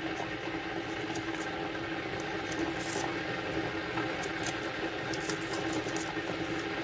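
Steady kitchen background hum and hiss with a constant low tone, like an appliance or fan running, and faint scattered ticks.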